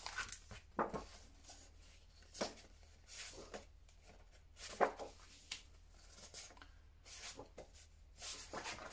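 Sheets of A5 designer paper being slid out of a clear plastic sleeve and leafed through by hand: scattered brief paper rustles and slides, a second or so apart.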